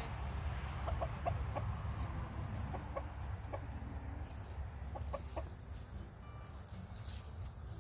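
Hens clucking softly: a few short clucks in small clusters, about one, three and five seconds in.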